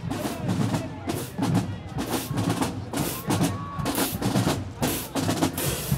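High school marching band drumline playing a street cadence: quick snare strokes and rim clicks over bass drum hits, with crowd voices faintly underneath.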